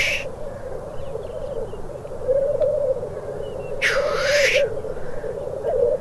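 Male black grouse lekking: a continuous bubbling, cooing song, with a loud hissing 'tchu-whee' sneeze that ends just after the start and another about four seconds in.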